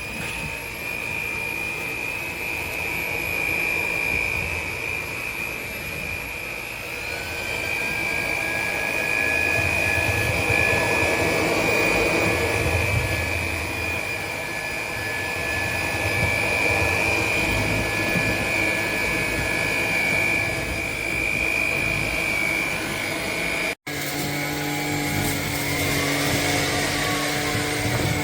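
Tineco A20 cordless stick vacuum running with a steady, high motor whine. About seven seconds in, the pitch steps up as the motor speeds up. Near the end the sound cuts out for an instant and comes back with a different, lower hum.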